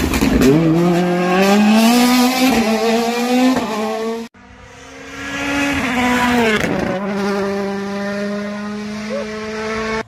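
Hyundai i20 Coupe WRC rally car's turbocharged four-cylinder engine accelerating hard out of a hairpin, its pitch climbing as it pulls away. After a sudden cut, a second pass: the engine builds up at high revs, dips briefly just before the middle, then holds a high, slowly easing note.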